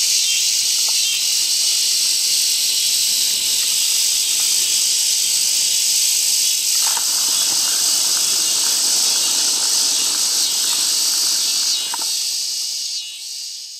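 Dense, steady, high-pitched insect chorus from the summer pond-side vegetation. About halfway through, a lower, rougher pulsing sound joins for about five seconds, and the chorus fades out near the end.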